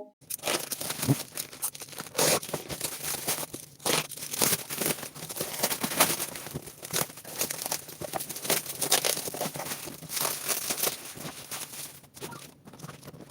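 A shipping package being torn open by hand, with its wrapping crinkling and crumpling in quick, irregular rustles and rips.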